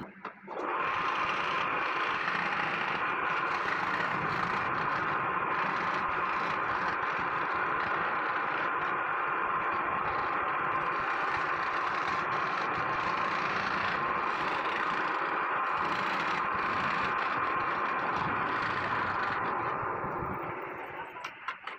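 A small power tool running steadily as it works the wood, starting about half a second in and fading out near the end.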